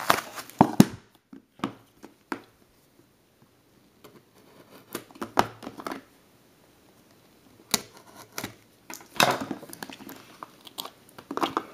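Trading cards and their packaging being handled: scattered sharp clicks and taps with short rustles in between, loudest in a cluster of clicks about a second in and a longer rustle near nine seconds.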